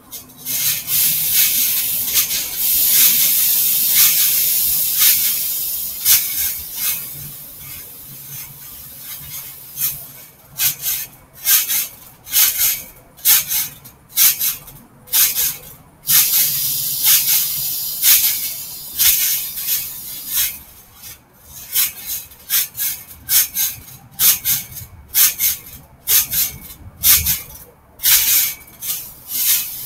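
Trampoline springs and mat creaking and rasping with each bounce, a short burst every half second to a second, after several seconds of steady hissing noise.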